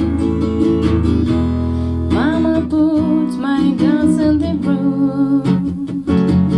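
Acoustic guitar strumming, with a voice singing a wavering, drawn-out phrase starting about two seconds in.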